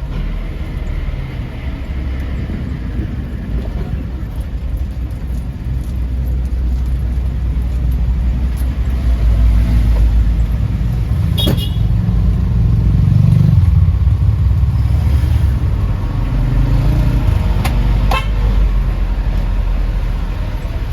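Motor vehicle running and driving with a steady low rumble that swells around the middle. This is a test run after the differential's gear clearance was adjusted to cure a clunk on gear changes. Two sharp clicks come through, one a little past halfway and one near the end.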